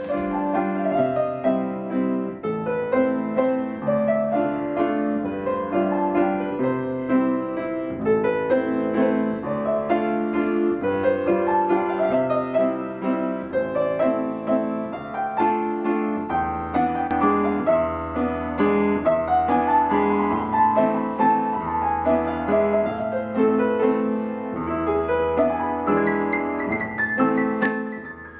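C. Bechstein grand piano played solo: a flowing melody over sustained chords, with deeper bass notes joining about halfway through.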